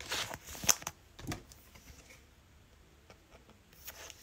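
Trading cards being handled and slid against one another: a quick run of clicks and scrapes in the first second and a half, then quiet, with a few more clicks near the end.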